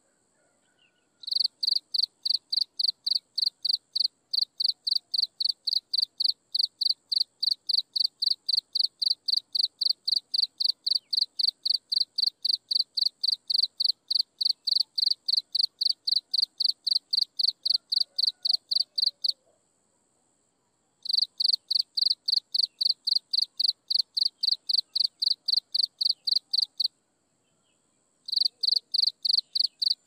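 Insect chirping in a fast, even, high-pitched pulse of about four chirps a second, in long trains that stop twice (after about 19 seconds and again near 27 seconds) and then start again. A faint steady high trill goes on underneath throughout.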